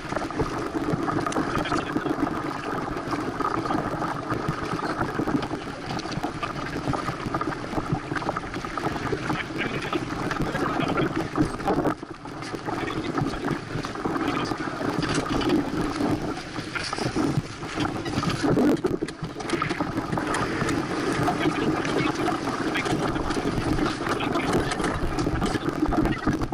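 Steady rush of wind and water past a small racing sailboat under way at about five miles an hour, picked up by a deck-mounted action camera's microphone, with a few brief knocks about two thirds of the way through.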